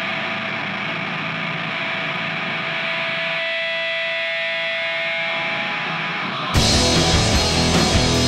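A steady hissing drone with faint steady tones, then loud rock music with electric guitar and drums cutting in about six and a half seconds in.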